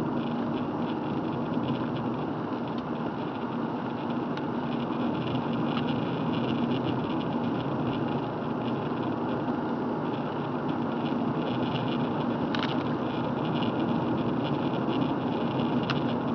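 Car driving on a rain-wet road, heard from inside the cabin: steady engine and tyre noise, with two short ticks in the second half.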